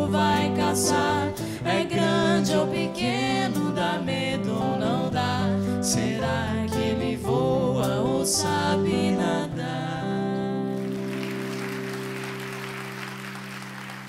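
A live pop band with sung vocals over guitars and drums finishes its song, closing on a held chord that slowly fades. Applause comes in about eleven seconds in.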